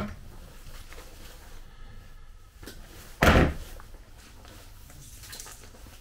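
A single short, loud thump about three seconds in, with faint clicks and handling noise around it.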